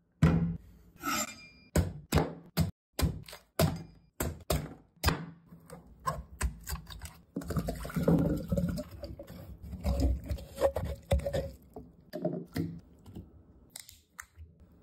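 A quick run of sharp thunks, two or three a second, as a hard-shelled fruit is knocked against a wooden chopping board to crack it open. From about halfway the sound turns rougher, as the shell is scraped and pressed over a glass bowl to get the pulp out.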